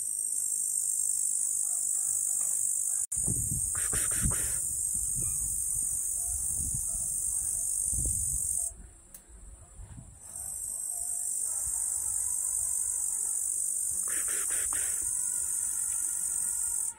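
Insect song: a loud, steady, high-pitched drone that breaks off about nine seconds in, starts again a second and a half later, and then cuts off abruptly. Some low rumbling runs beneath it in the first half.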